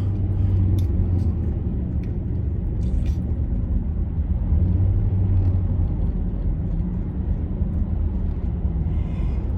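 Steady low rumble of a car's engine and road noise heard from inside the cabin while driving, with a couple of faint clicks.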